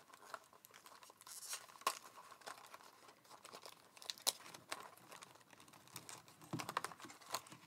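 Faint, scattered small clicks and rustles of thin card being handled, as a die-cut decoupage piece is pressed out of its sheet.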